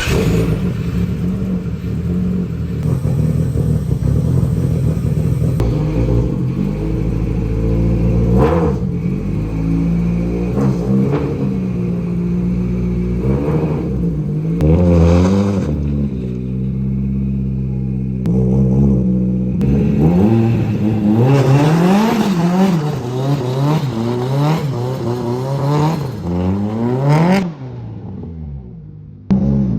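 Nissan Laurel C33's engine running and being revved again and again, its pitch rising and falling several times. The sound drops away a little before the end.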